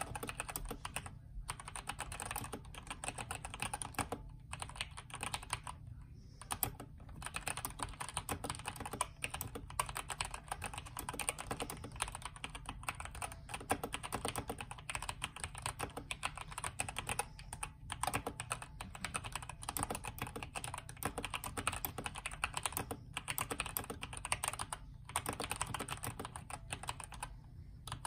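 Continuous fast typing on a Redragon K552 mechanical keyboard with stock Outemu red linear switches, its case filled with polyfill and tape-modded PCB. The keystrokes come in a rapid, steady stream, broken by a few brief pauses.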